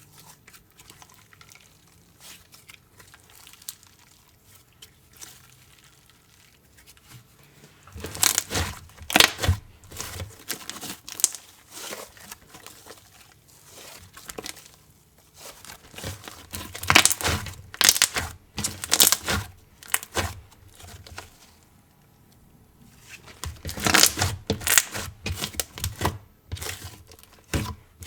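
Jelly slime with crushed clay pieces being squeezed and stretched by hand, giving spells of rapid sticky clicks and pops. There are three spells, with quieter handling between them.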